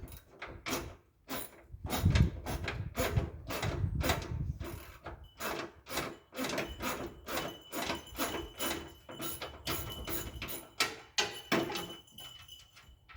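Hand tools and metal parts being worked on a Craftsman LT4000 lawn tractor during its teardown: a string of irregular sharp clicks and knocks, a few a second. A faint steady high tone joins them about five seconds in.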